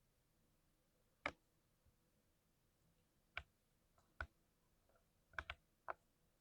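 Single keystrokes on a lubed 60% mechanical keyboard: about six separate sharp key presses with pauses between them, two in quick succession near the end.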